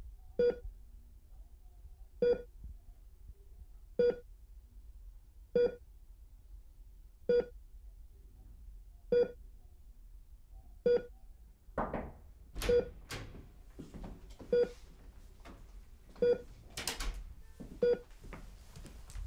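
Hospital patient monitor beeping steadily in time with the heartbeat, one short tone about every second and three-quarters. In the second half, rustling and light knocks join the beeps.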